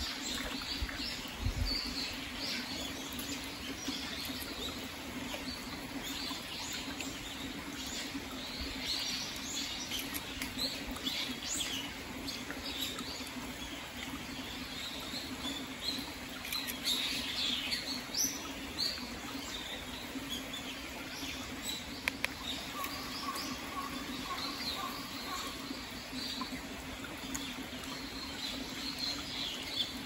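A shallow, rocky mountain stream trickling steadily, with small birds chirping in short, high calls throughout.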